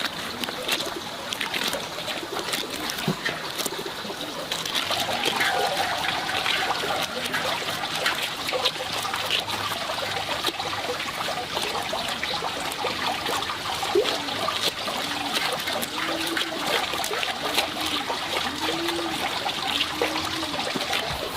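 Water trickling and splashing steadily, with many small splashes.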